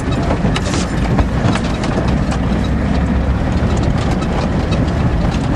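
Ford diesel truck being driven: a steady low engine and road rumble with frequent rattles and knocks throughout.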